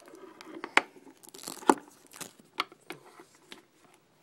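Handling noise close to the microphone: a plastic action figure and its accessories being fumbled with, giving scattered sharp clicks and short bits of crinkling and rustling.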